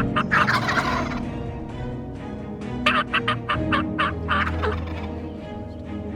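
Wild turkey gobbler gobbling: a quick run of notes in the first second, and another about three seconds in.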